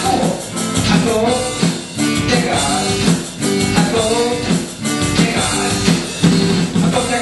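Live band rehearsal: a man sings a melody over a strummed LAG acoustic guitar, with a Millenium MPS-400 electronic drum kit keeping a steady beat through a speaker, in a swing/rock-and-roll style.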